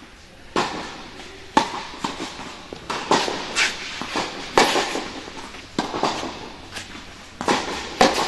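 Tennis balls struck by racquets and bouncing on a hard court during a rally: about ten sharp pops, one or two a second, each ringing briefly in the echo of a large indoor tennis hall.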